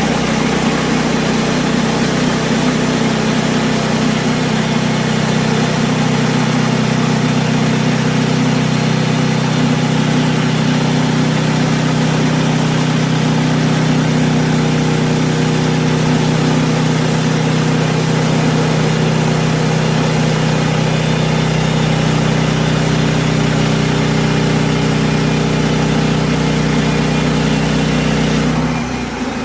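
Sawmill engine running steadily at a constant speed; shortly before the end its note drops away and it gets a little quieter.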